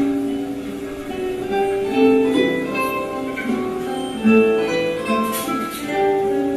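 Guitar quartet playing: several guitars pluck a melody over an accompaniment, with stronger notes about two seconds in and again just after four seconds.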